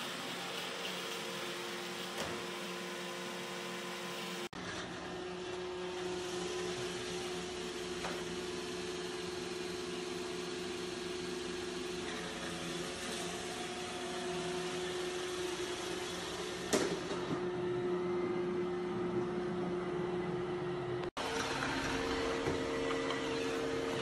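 iRobot Roomba Combo j5+ robot vacuum running: a steady motor hum with a whine. Its pitch and tone change abruptly twice, and there is one sharp knock a little past two thirds of the way through.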